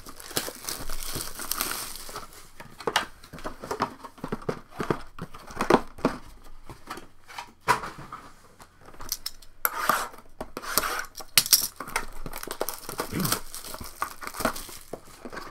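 Cellophane shrink-wrap being torn and crumpled off cardboard trading-card boxes by hand: irregular crinkling and crackling, with sharp clicks and taps as the boxes are handled. The crinkling comes in denser bursts near the start and again about two-thirds of the way through.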